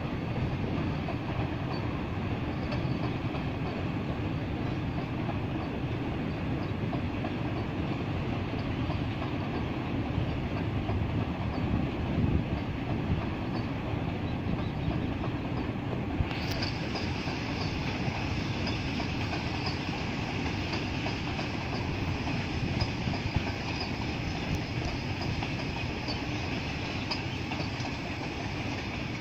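A freight train of BTPN tank wagons rolling past with a steady rumble and the clatter of wheels over the rail joints. About halfway through, a brighter hiss sets in suddenly.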